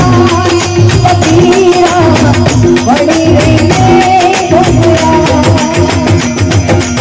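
Live Rajasthani devotional folk music: a woman's voice singing a bhajan with wavering held notes over harmonium, with a dholak drum and small hand cymbals (manjira) keeping a steady, busy rhythm.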